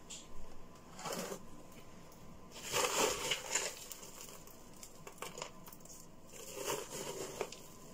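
A hand scooping and stirring a Douglas fir bark and mineral grit cactus potting mix in a plastic tub, the bark chips and grit rattling and pattering as they pour back. The rustle comes in three goes: briefly about a second in, loudest about three seconds in, and again near the end.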